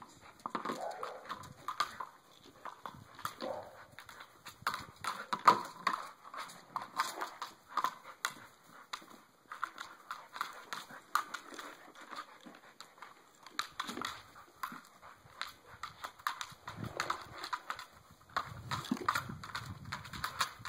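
A dog playing with a big ball on a lawn: irregular thumps and scuffs as it paws and noses the ball and scrambles after it.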